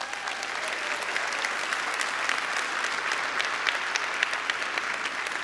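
Large audience applauding: a dense, steady clatter of many hands clapping, echoing in a big hall.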